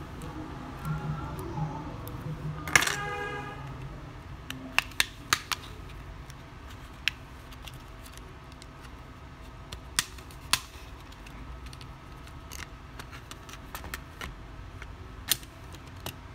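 A small metal object drops with a brief ringing clang about three seconds in. Scattered sharp clicks and taps follow as the phone's plastic midframe is unclipped and lifted off the circuit board.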